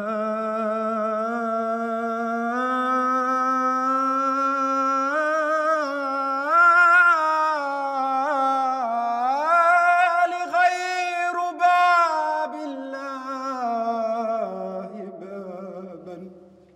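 A man singing a solo Arabic religious supplication (ibtihal) in a long melismatic line, holding and ornamenting each note. The line climbs to its highest pitch about halfway through, then falls and fades away near the end.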